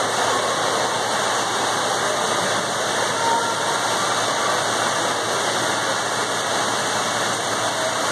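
Steady wash of noise in an indoor swimming pool hall: splashing water and many distant voices blurred into one constant din.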